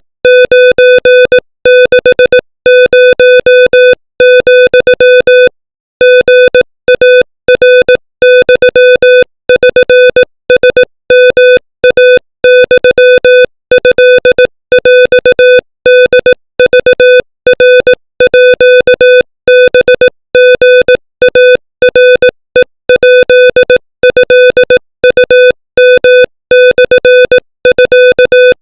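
Morse code sent at 25 words per minute: a single mid-pitched electronic tone keyed rapidly on and off in dots and dashes, with short pauses between characters and a few longer gaps between words.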